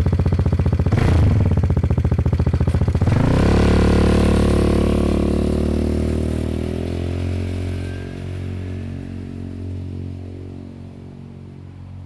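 Vespa GTS scooter's single-cylinder four-stroke engine through a VRX racing exhaust with its dB killer removed: idling with a quick throttle blip about a second in, then revving up about three seconds in as the scooter pulls away, the exhaust note fading as it rides off.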